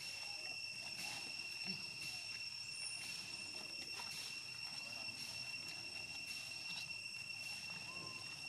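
Insects droning steadily in an even, high-pitched whine that never breaks, with a few faint ticks and rustles over it.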